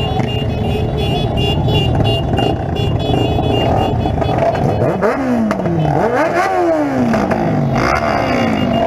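Motorcycle engines idling together at a standstill. From about five seconds in, one engine is revved in several quick blips, each rising sharply and falling back.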